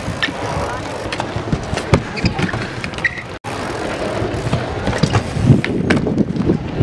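Dirt jump bike rolling across a skatepark deck on its back wheel, the tyre running steadily over the surface with occasional clicks.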